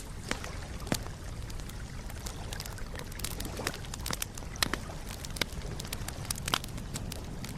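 Wood campfire crackling: irregular sharp snaps and pops over a steady low rush.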